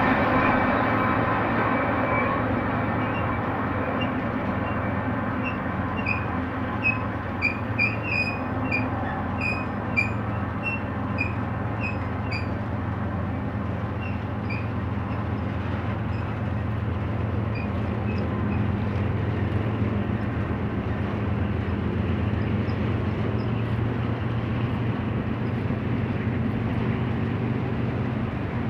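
BNSF freight train rolling past with a steady rumble of railcars, and a cluster of short high squeaks from about six to twelve seconds in.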